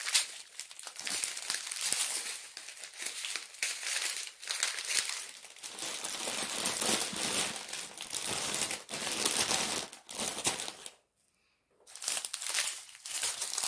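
Strips of small plastic bags of diamond painting drills crinkling as they are handled and laid out, with a second of silence a little before the end.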